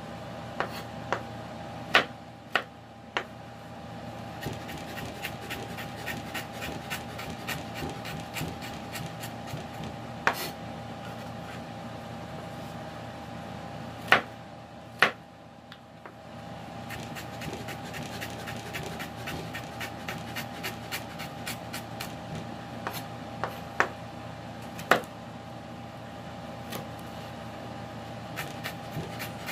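Kitchen knife chopping ginger finely on a wooden cutting board: a quick, even run of light taps of the blade on the board, with a few louder knocks here and there and a short pause about halfway through.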